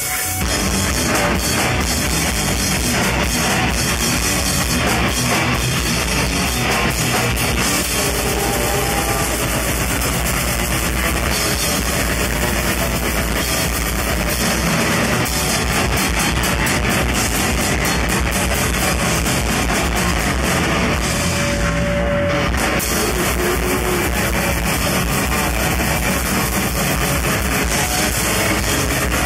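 Bestial death metal band playing live: distorted electric guitars, bass and very fast drumming, loud and dense.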